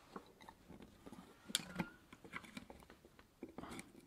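Faint clicks and scrapes of a small screwdriver prying at the plastic housing of a Basta bicycle dynamo as it is taken apart, with a few sharper clicks about a second and a half in and again near the end.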